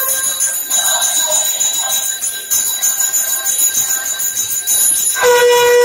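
Brass pooja hand bell rung continuously, a steady shimmering metallic ring. About five seconds in, a loud, steady horn-like tone with several overtones sets in over it.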